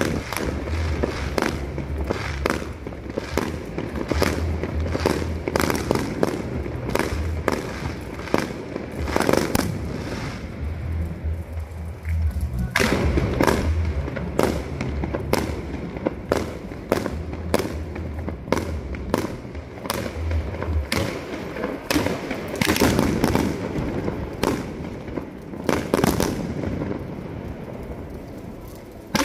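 Fireworks display: a rapid, continuous run of bangs and crackling bursts, easing briefly about ten seconds in before picking up again.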